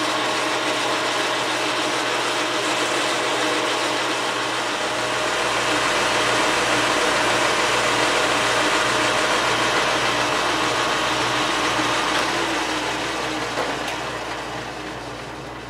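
Metal lathe running under power, its geared headstock and drive whirring steadily while a cutting tool turns down a metal stub in the chuck. About three-quarters of the way through the lathe is switched off and winds down.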